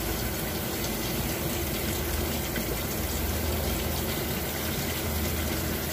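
Steady rushing water noise with a low hum beneath it.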